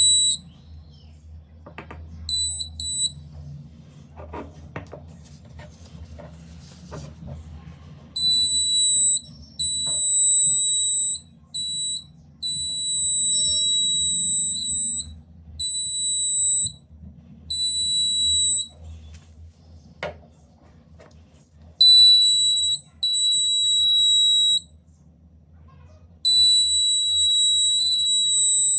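Buzzer of a proximity sensor circuit sounding a steady high-pitched tone, switching on and off in stretches from a fraction of a second to several seconds long as the sensor is triggered by something coming near. A few clicks of handling come between the tones.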